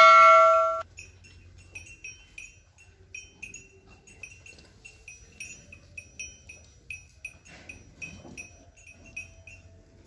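Small metal bell tinkling in short, high pips, about three a second, after a loud sustained tone that cuts off about a second in.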